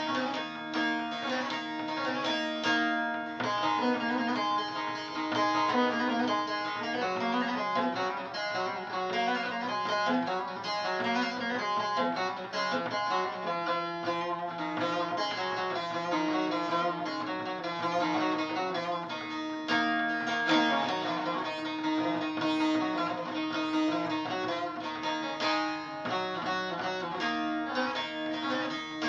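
Bağlama (saz) playing an instrumental passage of a Turkish folk song: quick plucked melodic runs over a steady held accompaniment tone, with no singing.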